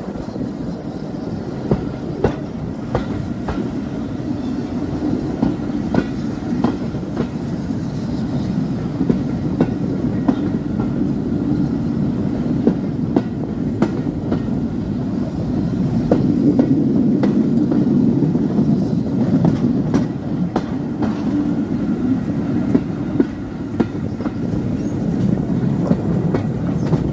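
Passenger coach running along the rails at speed, heard from outside its window: a steady rumble of wheels on track with irregular sharp clicks as the wheels pass over rail joints. The rumble swells a little for a few seconds past the middle.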